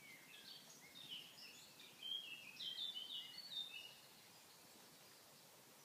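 A songbird singing a rapid run of short, high notes, strongest in the middle and ending about four seconds in. After that only a faint steady hiss remains.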